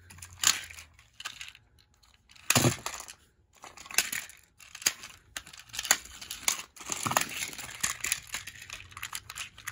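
Plastic TrackMaster toy trains being grabbed, knocked together and scraped across carpet by hand: an irregular run of clicks, knocks and short rustles, loudest about two and a half seconds in.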